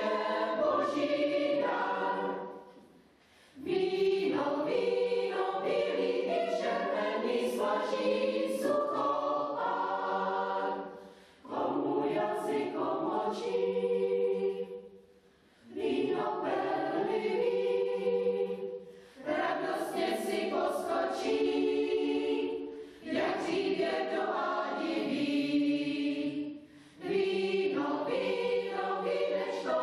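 Mixed-voice chamber choir singing unaccompanied, in phrases broken by brief pauses every few seconds.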